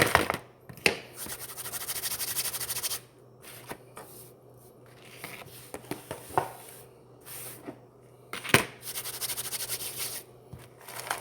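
Crunchy Cheetos being crushed in a plastic dish: two long runs of dense crackling crunch, with sharp knocks against the dish in between, the loudest about eight and a half seconds in.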